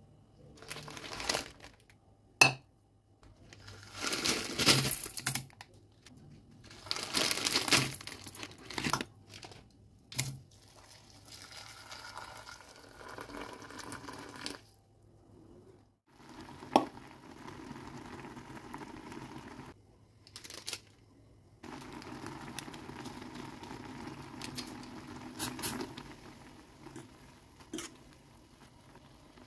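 Plastic Indomie instant-noodle packets crinkling and being torn open in a run of loud crackly bursts. After that comes a long steady rush of water poured into a stainless steel pot over a block of instant noodles.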